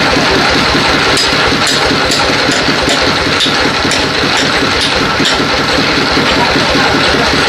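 A heavy engine running steadily with a rapid low pulsing, with a string of light clicks from about one to five seconds in.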